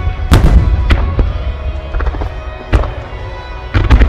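Star mine fireworks: aerial shells bursting in a rapid volley of booms. A cluster of bangs comes about half a second in, a single loud one near three seconds, and another cluster near the end, all over music with sustained tones.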